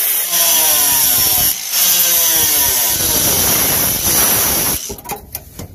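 An angle grinder with a metal cut-off disc cuts through the van's sheet-steel floor panel. Its whine sags in pitch as the disc bites, and it eases off briefly twice. It stops about a second before the end as the cut is finished.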